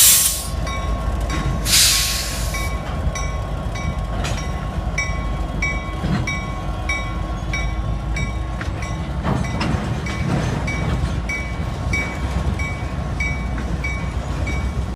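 CSX freight train rolling past with a steady low rumble. There are two short bursts of hiss near the start and about two seconds in. From about three seconds on, a high ringing tone repeats evenly about twice a second.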